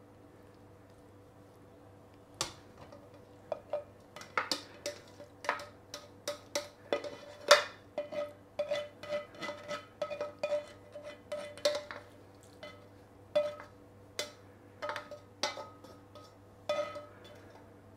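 A cooking utensil scraping and knocking against the inside of a stainless steel pan as braised cabbage is scraped out of it: an irregular run of sharp metallic taps and clinks, each ringing briefly, busiest through the middle.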